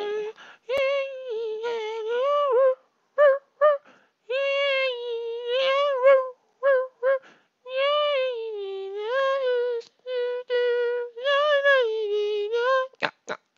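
A high, pitched-up cartoon voice humming a wordless tune in long, wavering held notes, with short pauses between phrases.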